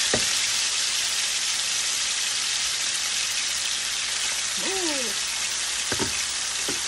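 Minnows and green peppers frying in hot oil in a skillet, a steady sizzle. A couple of light knocks come near the start and near the end.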